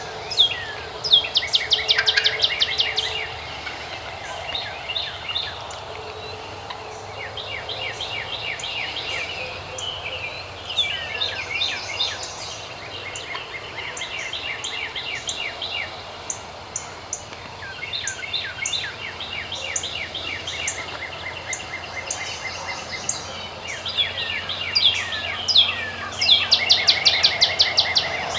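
Songbirds singing: repeated rapid trills of short high notes, coming in phrases a few seconds apart, with the loudest bursts about a second in and again near the end.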